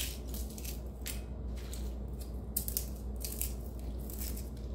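Crisp air-fried homemade potato chip crackling as it is crushed and crumbled between fingers, in a series of short crunches; the crackle is the sign of a crisp chip.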